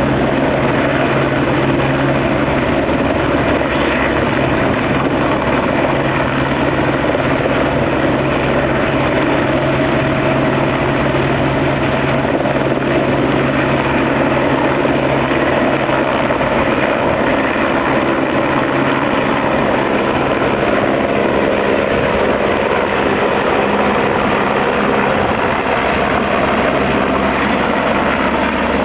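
Firefighting helicopter hovering while it loads water, its rotor and engine running loud and steady, with an even low drone.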